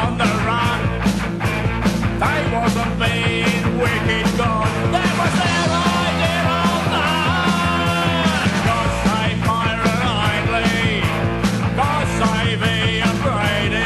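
Punk rock song played by a full band: steady, fast drum hits under a sung vocal line. The low bass drops out for about three seconds midway and comes back.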